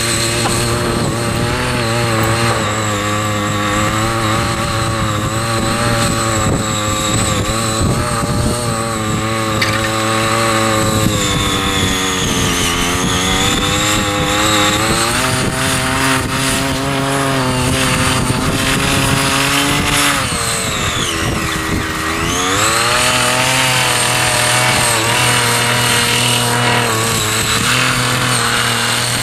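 Small petrol engine of a foldable mini power tiller running steadily under load, its speed sagging and picking back up about twelve seconds in and again about twenty seconds in as the tines bite.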